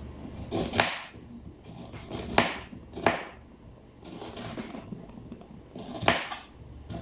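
Knife chopping onion on a cutting board: four sharp, irregularly spaced chops.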